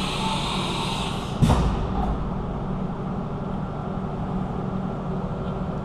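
Haas TM-1P CNC vertical mill running its automatic tool-length setting cycle: a steady machine hum, with a hiss that dies away in the first second or so and one sharp clunk about a second and a half in.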